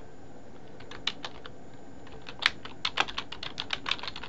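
Typing on a computer keyboard: a couple of keystrokes about a second in, then a quick run of keystrokes in the second half.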